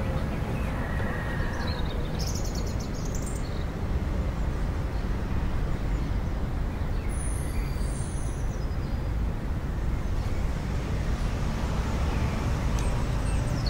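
Steady low rumble of outdoor background noise, with a few faint bird chirps near the start and near the end.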